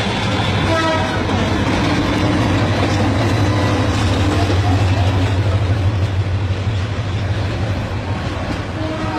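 A train running, a loud broad rumble with a steady low drone that is strongest through the middle few seconds and eases off near the end.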